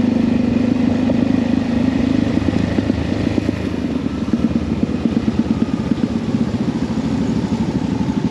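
Single-cylinder dual-sport motorcycle engine heard from the rider's seat, running steadily at first, then dropping to low revs about two seconds in and chugging with a quick uneven pulse as the bike rolls slowly.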